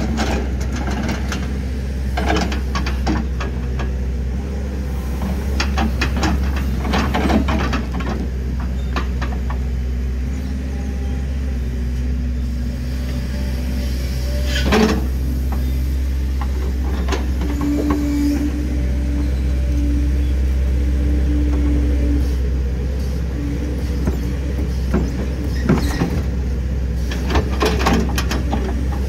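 Link-Belt 145 tracked excavator's diesel engine running steadily as the machine tracks and works, with scattered knocks and clanks. A steady whine holds for a few seconds past the middle.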